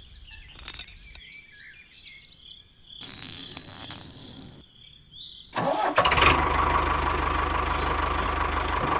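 An engine starts up a little past halfway and settles into a steady idle with an even low pulse. Birds chirp in the quieter first part.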